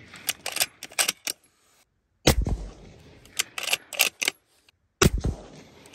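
Two shots from a Sig Sauer Cross bolt-action rifle, about two and a half seconds apart, each with a booming echo. Before each shot come sharp metallic clicks as the bolt is worked to eject the spent case and chamber the next round.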